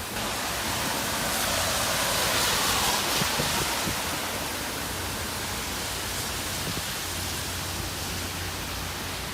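Typhoon wind and rain making a steady rushing noise, which swells in a gust about two seconds in and then eases.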